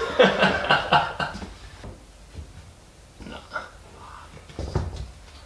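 A man's voice briefly at the start, then quiet handling of a welded steel desk frame: scattered light knocks and shuffling, with a dull thump near the end.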